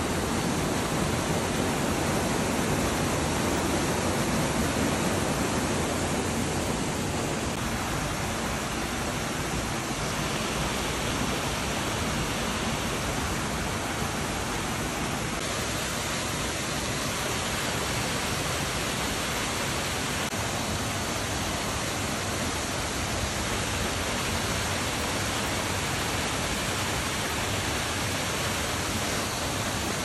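Steady rush of falling water from Aira Beck's cascades and the 20-metre Aira Force waterfall, an even noise with no breaks, its tone shifting slightly a few times.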